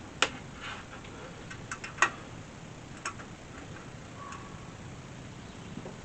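Scattered sharp clicks and light taps of small parts being handled while the diesel heater's power wires are connected, with two louder clicks near the start and about two seconds in, over a low steady hum.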